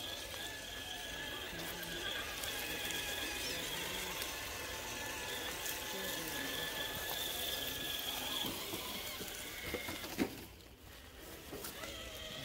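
RC crawler truck's electric motor and gear drive whining as it crawls: a steady high-pitched whine that stops with a click about ten seconds in and starts up again near the end.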